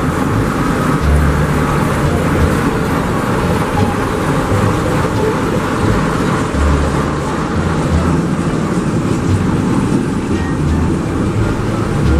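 ChME3 diesel shunting locomotive's engine running with a steady low rumble as the locomotive moves past, hauling a passenger coach.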